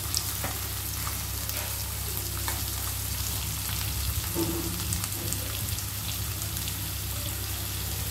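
Chopped onions and green chillies sizzling steadily as they fry in hot oil in a kadai, with a steady low hum underneath.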